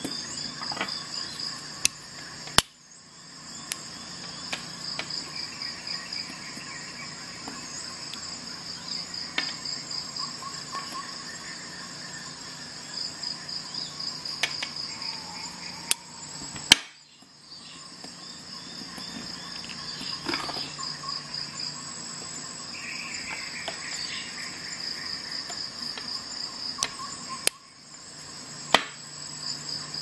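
Insects chirping steadily in rapid pulsing trills, with a few sharp clicks: one about two and a half seconds in, one midway and one near the end.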